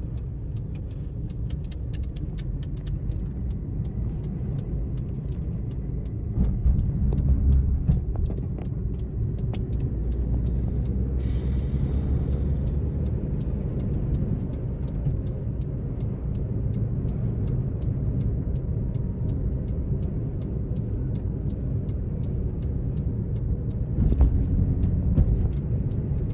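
Steady low rumble of road and wind noise inside a car driving through a sandstorm, with scattered light ticks. The rumble swells louder twice, about six seconds in and near the end.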